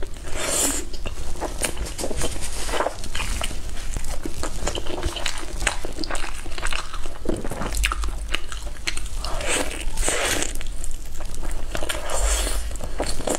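Close-miked eating sounds of a person biting and chewing braised chicken wings: a steady run of small crackles and clicks with several louder bites spread through.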